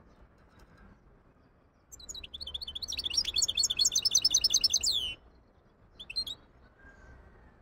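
Goldfinch hybrid singing in its cage: a fast run of high, twittering notes about three seconds long, starting about two seconds in. A couple of short calls follow about a second later.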